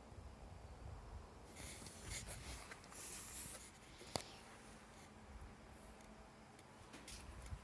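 Faint scratchy rubbing of a handheld phone being moved and turned, with a sharp click about four seconds in and a few more clicks near the end, over a low rumble.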